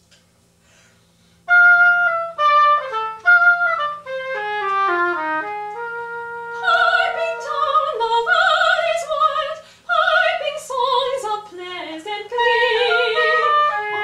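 Clarinet and oboe playing a slow duet: a descending phrase of held, smoothly joined notes begins about a second and a half in, and a second line with vibrato joins around the middle.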